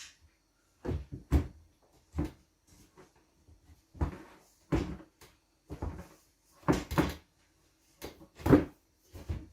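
A heavy metal pot rack knocking and clunking as it is handled and shifted into position against the ceiling: about a dozen short, irregular knocks, the loudest near the end.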